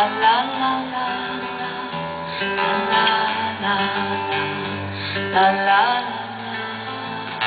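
Live acoustic guitar music, the strings plucked and strummed, as an instrumental passage of a song.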